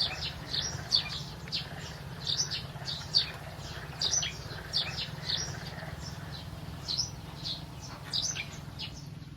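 Small birds chirping: many short, quick downward-sliding chirps, several a second and unevenly spaced, over a steady low hum.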